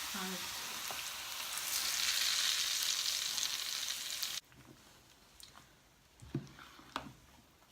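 Onion frying in oil in a pan: a steady sizzle that grows louder about two seconds in, then cuts off abruptly a little past halfway. Faint clicks and knocks follow.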